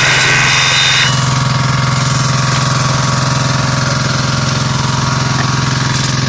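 An engine running steadily with a fast, even rhythm. A higher whirring sound on top of it stops about a second in.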